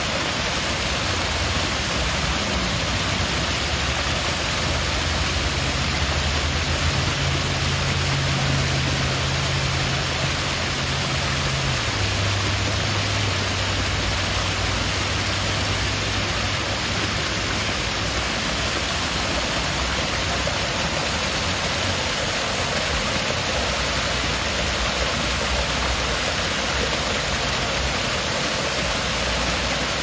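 Small waterfall cascading over rocks: a steady, full rushing of falling water. A faint low hum sits underneath it in the first half, dropping a little in pitch midway before fading out.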